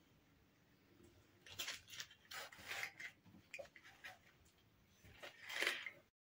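Aluminium foil crinkling and roast chicken meat tearing as hands pull a leg bone out of a whole foil-roasted chicken. The sound comes in faint, irregular bursts, with the loudest one near the end.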